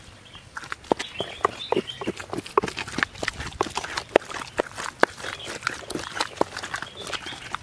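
A pestle grinding and pounding a green leaf mash in a clay grinding bowl, giving irregular sharp knocks about four times a second, starting about half a second in.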